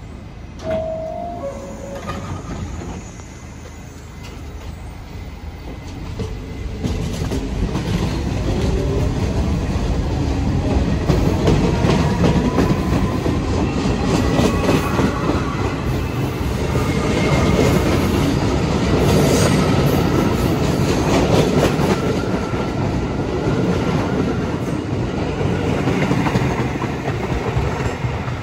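New York City subway train running through the station, its wheels clattering over the rail joints, with a whine that rises in pitch as the sound swells. A brief two-note tone sounds about a second in.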